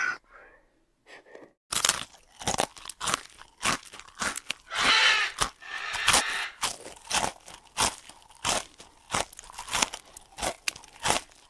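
Porcupines chewing food: a rapid, irregular run of crisp crunches, starting a couple of seconds in.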